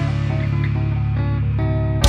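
Music: sustained low bass tones with short melody notes changing above them.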